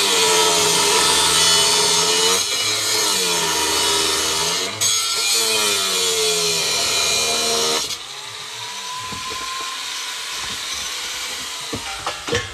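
Handheld angle grinder grinding the metal of a frying pan: a loud, harsh hiss over the motor's whine, which sags and recovers in pitch as the disc is pressed in. About eight seconds in the grinding stops and the level drops, leaving a fainter motor whine, with a few sharp clicks near the end.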